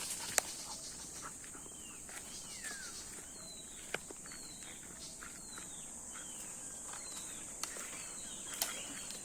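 Outdoor ambience of a steady high-pitched insect drone, with short bird calls that slide downward, repeated every half second or so. Footsteps and a few sharp clicks are heard, one about half a second in and one about four seconds in.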